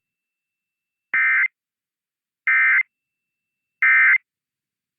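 Emergency Alert System end-of-message code: three short bursts of SAME digital data tones, each a brief buzzy warble about a third of a second long, sent about 1.3 seconds apart. They mark the end of the broadcast test alert.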